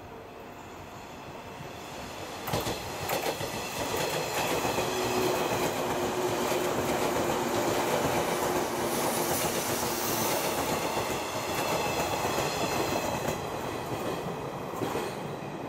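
A 189-series express electric train approaching and passing close by. Its wheels clack over the rail joints from about two and a half seconds in, a steady hum runs under the rumble as it goes by, and the sound fades near the end.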